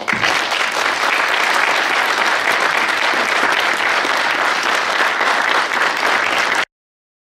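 Audience applauding steadily; the applause cuts off suddenly near the end.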